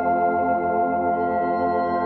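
Background ambient music of steady, sustained chords.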